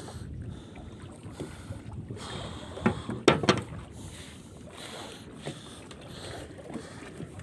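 Steady wind and water noise aboard a small fishing boat, with a couple of sharp knocks about three seconds in.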